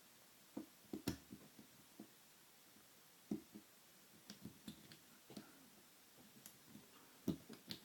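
Faint, scattered clicks and taps of a broken hook pick and tension wrench working the pins of a pin-tumbler lock, with a few sharper clicks about a second in, in the middle and near the end.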